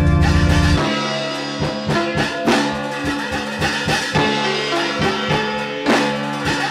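Instrumental experimental music. A loud, low sustained drone cuts off about a second in, and a run of sharp percussive hits over held tones follows.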